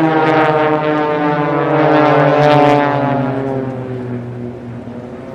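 Propeller engines of several Extra 300LP aerobatic aircraft flying past in formation: a loud engine drone that swells, peaks about two to three seconds in, then fades, its pitch falling as they pass.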